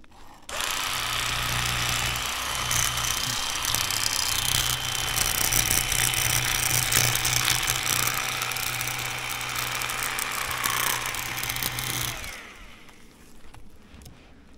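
Electric fillet knife running steadily, a buzzing hum with a thin high whine, as its blades saw a fillet off a small bass. It starts about half a second in and stops about two seconds before the end, its pitch sliding down as the motor spins down.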